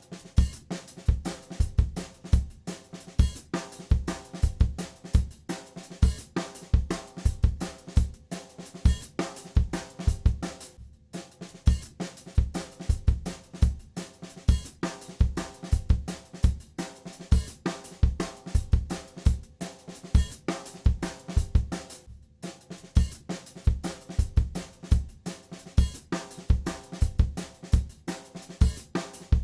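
Background music with a steady drum-kit beat: kick drum, snare and hi-hat over sustained chords.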